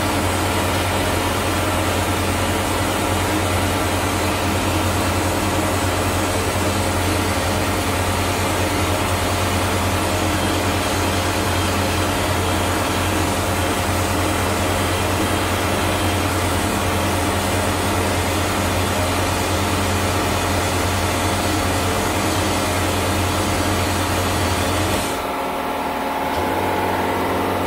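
Vapor blasting cabinet in use: a 3D-printed vapor blasting nozzle blows a steady, hissing jet of air and glass-bead slurry against an aluminium part, over a low machine hum. Near the end the blast stops, leaving a quieter hum.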